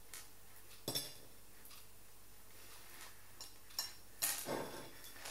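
Beads clicking against a plate as they are picked out and threaded onto elastic cord: a few separate clicks, then a short clatter about four seconds in.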